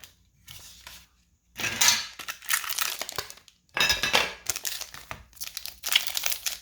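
Small metal card tin and foil booster packs being handled: clinks of the tin with crinkling and tearing of the pack wrappers, in several separate bursts.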